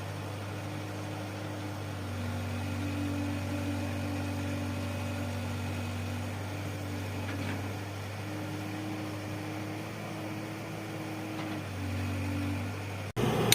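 Engine of a piece of heavy construction machinery, such as a backhoe loader, running steadily at idle with a low, even hum whose pitch shifts slightly at times. Near the end the sound breaks off suddenly and comes back louder.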